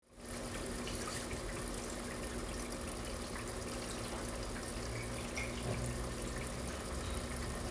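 Steady rushing noise like running water, with a faint steady hum underneath.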